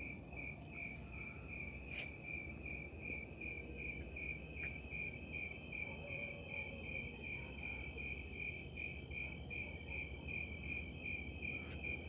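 A cricket chirping in rapid, evenly spaced pulses on one high pitch, over faint low background noise.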